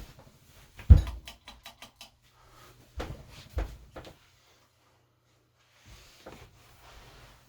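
Irregular thumps and knocks with a quick run of clicks, the loudest thump about a second in, over the faint steady low hum of the ceiling fan's motor running at low speed.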